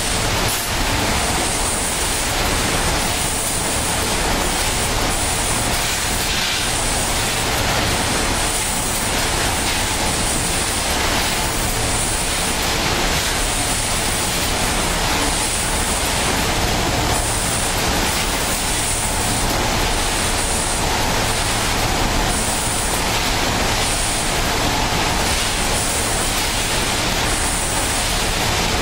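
A row of vertical form fill seal packaging machines running together on a snack line: a steady dense mechanical din, with a high hiss that pulses on and off about once a second.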